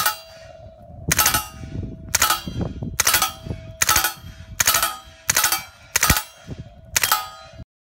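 Suppressed MP5 submachine gun firing about nine shots a little under a second apart, each followed by the ringing of a struck steel target. The sound cuts off suddenly near the end.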